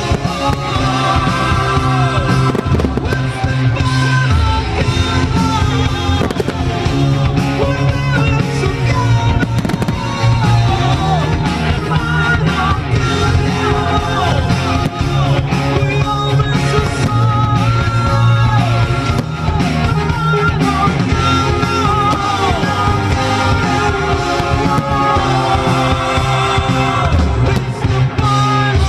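Loud music with a heavy bass line and a singing melody, with fireworks bangs and crackles mixed in under it.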